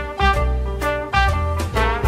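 Upbeat swing-style background music with brass and a strong bass, a new chord about every half second.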